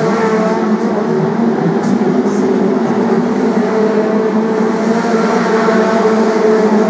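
A pack of BriSCA F2 stock cars racing round the oval, several engines running together in a steady, overlapping drone.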